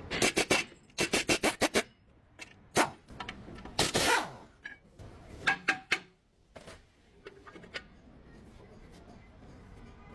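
Hand tools and brake parts clicking, knocking and scraping during work on a car's rear brake pads. The sharp knocks come in quick runs through the first few seconds, then give way to a faint steady background.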